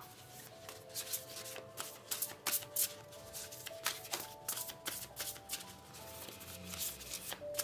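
A deck of oracle cards being shuffled by hand: a long run of quick papery flicks and slaps, over soft background music with long held notes.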